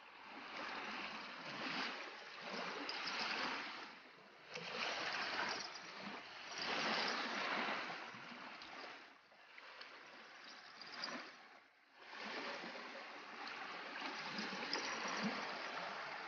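Water splashing and lapping at the shoreline, swelling and fading every second or two.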